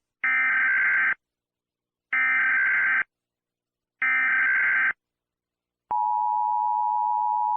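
Emergency Alert System signal: three near-second bursts of the SAME digital data screech, about a second apart, then the steady two-tone EAS attention signal starting about six seconds in.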